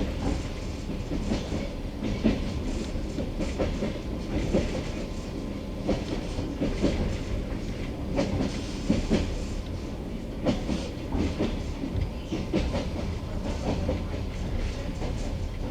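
Passenger train wheels clattering over the track, heard from on board: irregular knocks over a steady low rumble.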